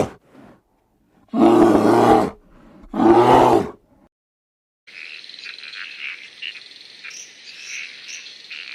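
Two loud pitched animal calls, each just under a second long. From about five seconds in, a steady, high chirping chorus with many short chirps.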